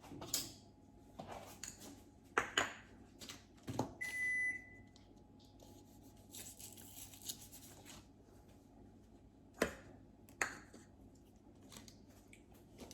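Quiet kitchen handling sounds while a cube of butter is cut from a wrapped stick: scattered light knocks and clicks, one short electronic appliance beep about four seconds in, and a soft rustle in the middle.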